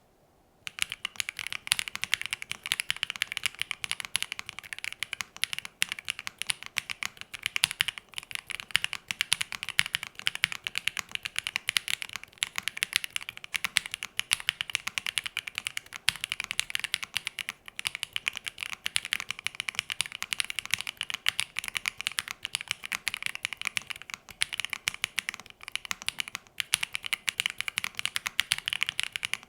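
Continuous fast typing on a WIND XLICE mechanical keyboard, top-mounted on a PP plate with pre-lubed WS BigLucky linear switches and GMK keycaps: a dense stream of keystroke clicks, starting just under a second in.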